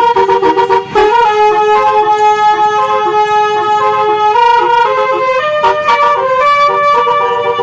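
Basuri telolet horn, a multi-trumpet musical air horn fitted to a vehicle, playing a tune as a run of loud held notes that step up and down in pitch.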